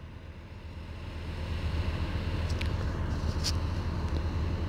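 Low, steady engine rumble of working earthmoving machinery, growing louder after about a second and then holding.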